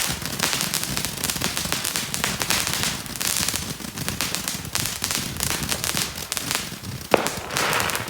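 Firecrackers going off in rapid succession, a dense continuous crackle of sharp pops, with one louder bang about seven seconds in.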